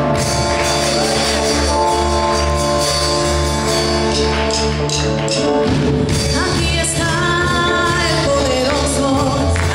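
Live worship music: held chords over a steady bass line with a tambourine beating in rhythm, and a voice singing in the second half.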